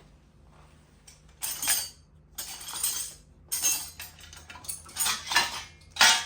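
Metal hand tools (sockets, extension and ratchet) clinking and rattling against each other in about six short bursts, the loudest near the end.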